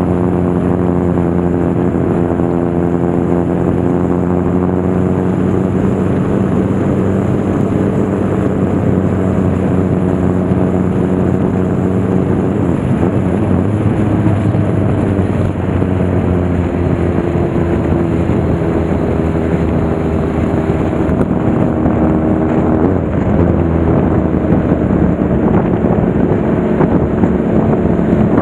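Motorcycle engine running at a steady cruise under a rush of wind and road noise; the engine note fades, then comes back at a slightly different pitch about halfway through and again near the end.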